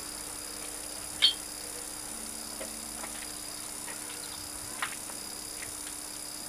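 Steady hiss and low hum of an old camcorder's tape recording, with a sharp click about a second in and a fainter click near five seconds.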